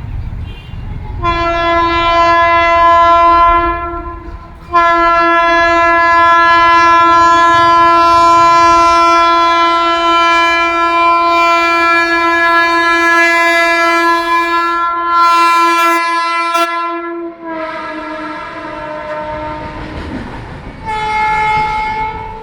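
WAG-12 electric freight locomotive's horn blowing: a short blast about a second in, then one long blast of about twelve seconds that drops slightly in pitch near its end, and a brief final honk near the end. A low rumble of the running train lies under the first few seconds.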